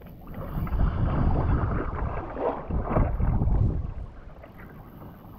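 Wind buffeting the microphone and water washing around a kayak at sea: a heavy rushing noise with a couple of stronger surges, easing off after about four seconds.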